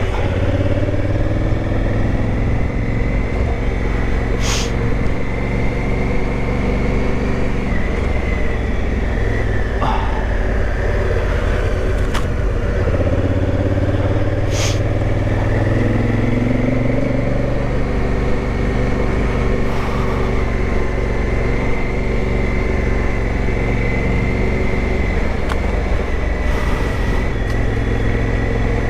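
Big adventure motorcycle engine running steadily under way on a dirt trail. The revs rise and fall with the throttle, and a few sharp clicks are heard.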